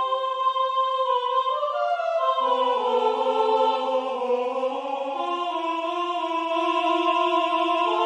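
Three treble voices singing a slow, sustained three-part piece. A lower third voice joins about two and a half seconds in, and the parts move on in held notes.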